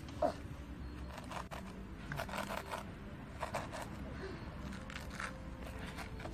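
Plastic toy shovel scraping and scooping sand in short irregular strokes, with faint children's voices.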